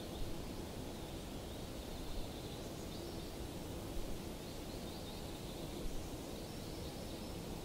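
Steady outdoor ambience: an even background hiss with a few faint, brief sounds over it.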